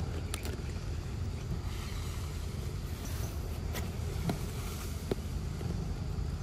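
A long-tailed macaque chewing and biting into a soft ripe mango close to the microphone, giving a few sharp wet clicks over a steady low rumble of wind on the microphone.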